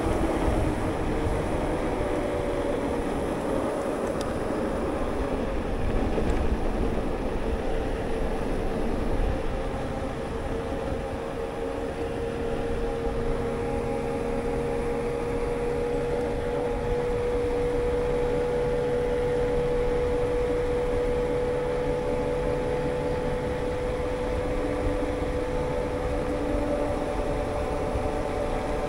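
Electric mountain bike with a Bosch drive rolling along asphalt: a steady hum from the bike that drifts slowly in pitch with speed, over a low rumble of wind on the microphone.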